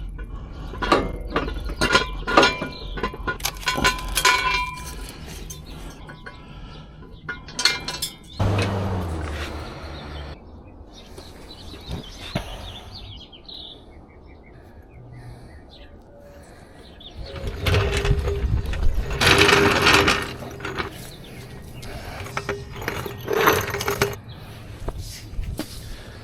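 Metal clinks, clanks and scraping from a floor jack and jack stands as a car is lifted at its pinch weld, with a couple of longer rushing, grinding stretches about a third of the way in and again about two thirds in.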